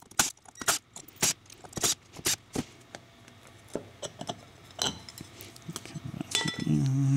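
Irregular metallic clicks, clinks and light knocks as the side plate and screws of an eZee geared e-bike hub motor are handled and the plate is lifted off. The knocks come thickest in the first few seconds, then thin out.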